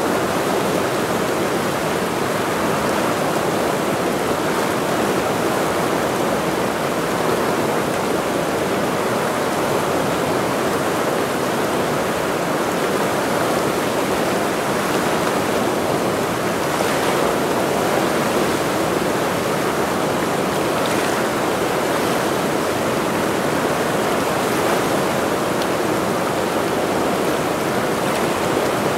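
Mountain river running: a steady, loud rush of fast water.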